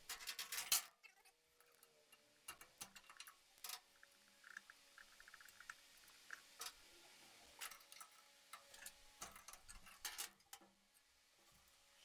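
Faint, irregular clicks and light knocks of small objects being handled, with a quick cluster in the first second.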